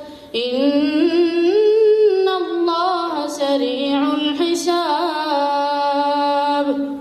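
A boy reciting Quran verses in melodic Arabic chant (tilawat) into a microphone. After a quick breath he sings one long ornamented phrase that climbs in pitch at first and ends on a long held note.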